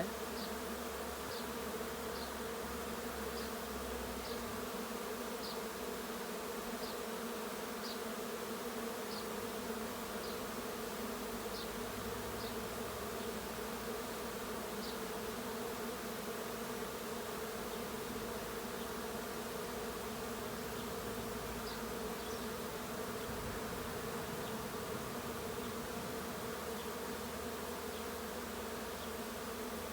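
A honey bee swarm buzzing in a steady, even hum as the bees crowd a hive entrance, waiting their turn to go into their new hive.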